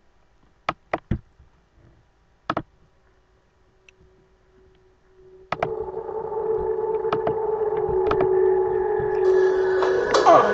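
A few computer mouse clicks, then about halfway through a steady droning sound with several held tones starts suddenly and grows louder: the soundtrack of the video being played, heard from computer speakers.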